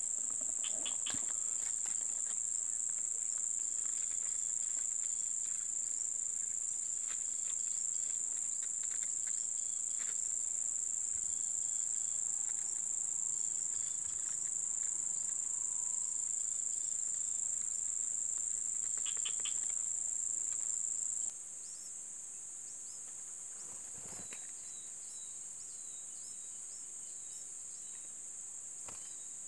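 A steady, high-pitched drone of insects calling, which becomes quieter about two-thirds of the way through. Near the end, a run of faint, short, thin cheeps comes from the nestlings.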